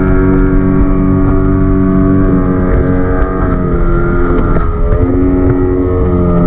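Yamaha Enduro 40 hp two-stroke outboard motor running at speed, pushing the boat along; its pitch dips slightly a little past halfway, then holds steady.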